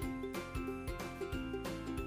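Background music with a steady beat and a pitched melody.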